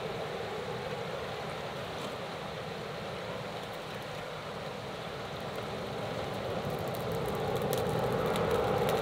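Air from a stone-weighted bellows blowing through a blacksmith's forge fire: a steady rushing hiss that grows slightly louder, with crackling in the last few seconds.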